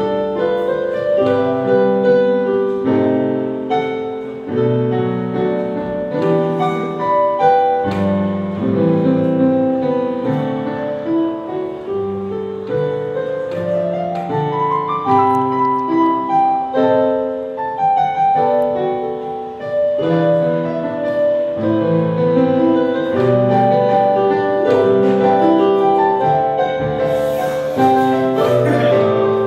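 Piano playing continuously, a steady flow of melody notes over chords.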